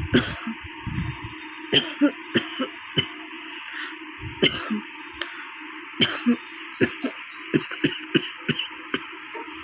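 A woman coughing many times, in short sharp coughs coming in quick succession and clusters, from a real cold with a cough.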